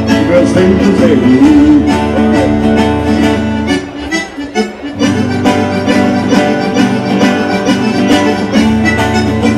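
Live band playing an instrumental break in a gaúcho folk song: strummed acoustic guitars under a melody line, with no singing. The bass drops out and the music quietens briefly about four seconds in.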